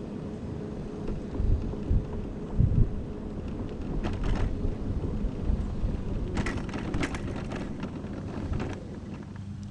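Electric mobility scooter rolling along, its motor giving a steady low hum. There are a few low thumps one to three seconds in as it goes over rough pavement, and rattling clicks around four seconds and again between six and seven and a half seconds.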